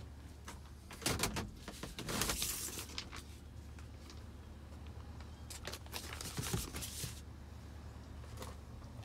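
A few knocks, clicks and rustles of someone moving about inside a pickup truck's cab, over a low steady hum. There is a short noisy stretch about two seconds in, and more clicks a few seconds later.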